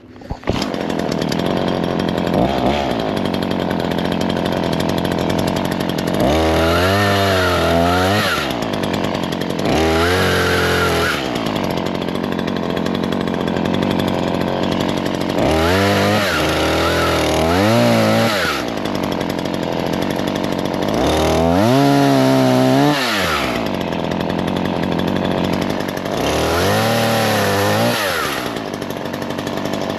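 Chainsaw running loudly, revved up and let back down about six times.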